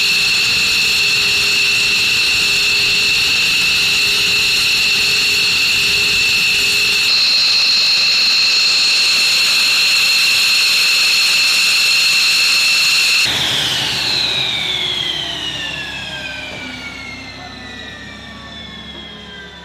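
F-15 Eagle's Pratt & Whitney F100 turbofan engines running with a loud, steady, high-pitched whine. About two-thirds of the way through, the whine falls steadily in pitch and fades as the engines spool down at shutdown.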